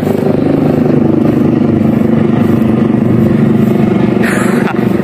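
Noisy helicopter overhead: a steady, loud low drone with a fast flutter.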